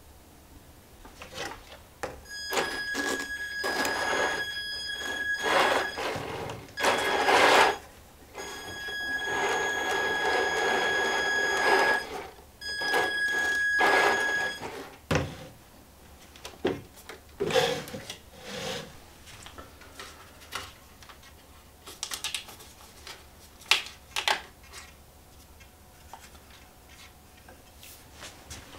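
Electric motor and gear drivetrain of an Amewi 22390 (HG P802) 8x8 RC truck running with a steady whine as the wheels spin freely, in four runs of a few seconds each with stops between. The differentials are locked on all axles. Scattered clicks and knocks follow in the second half.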